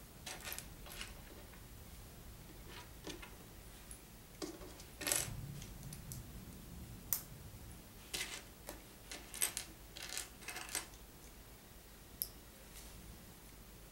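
Small plastic Lego pieces being handled: irregular clicks, taps and brief rustles as bricks are picked up and pressed together, with the loudest rustle about five seconds in.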